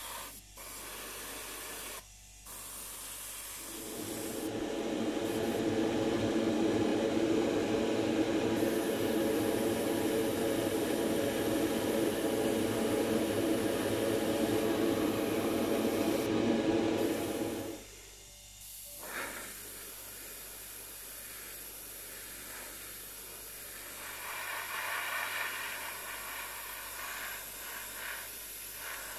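Airbrush hissing as it sprays paint. A louder steady hum joins about four seconds in and stops suddenly about two-thirds of the way through.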